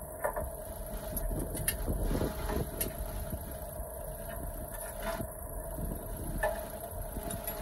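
Yanmar compact diesel tractor idling steadily, with a few light metallic clicks and knocks from the box blade's scarifier shanks and pins being handled.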